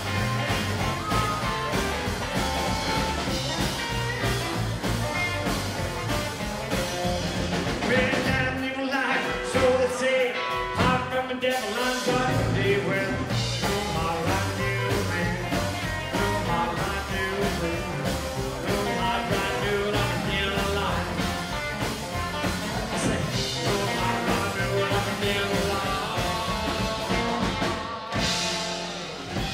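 Live rockabilly band playing: drum kit, upright double bass, electric and acoustic guitars, and a male lead vocal. About nine seconds in, the bass and drums drop out for a few seconds, then come back in. Near the end the song stops on a final hit.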